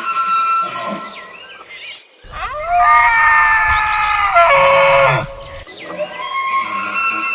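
A bull deer bugling: one loud, high call that rises steeply in pitch about two seconds in, holds for a couple of seconds, steps down and then drops away, with low grunting at its end. Fainter drawn-out tonal calls sound before and after it.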